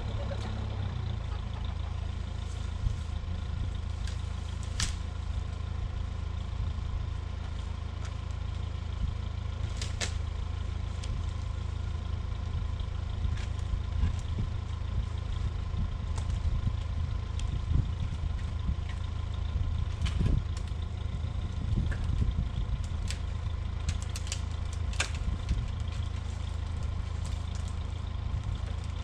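Engine of the work machinery running steadily at a constant speed, with scattered light clicks and clanks.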